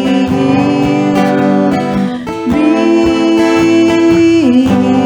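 Worship music: acoustic guitar strumming steadily under long held pitched notes that change about halfway through.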